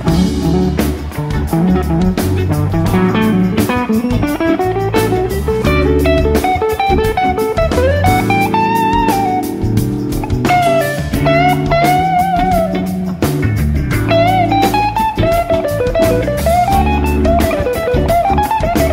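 Live rock band recording used as background music: an electric guitar plays a lead line with bent, wavering notes over bass and drums.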